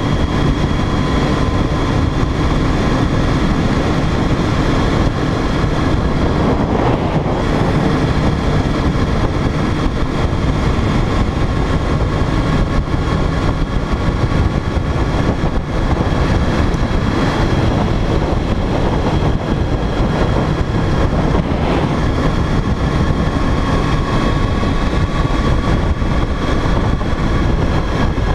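Motorcycle riding at a steady cruising speed, heard through a bike-mounted action camera: heavy wind rush on the microphone over a steady engine whine, which rises slightly in pitch in the last few seconds.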